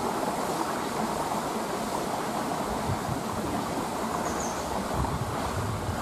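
Steady rush of flowing water in a mountain stream, an even noise with no breaks.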